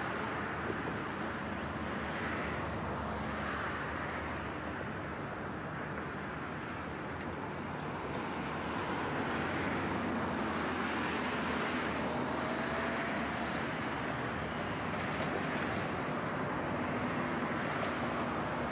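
Adelaide suburban diesel railcar approaching through the rail yard: a steady engine drone that keeps an even level.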